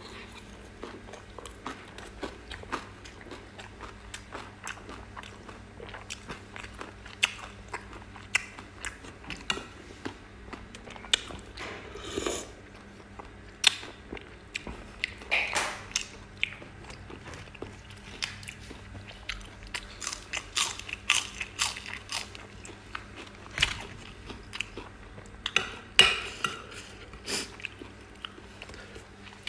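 Close-up chewing and biting of a mouthful of raw oysters in fermented fish sauce wrapped in fresh lettuce and herbs: irregular crisp crunches and wet mouth clicks, a few louder ones about twelve, fifteen and twenty-six seconds in.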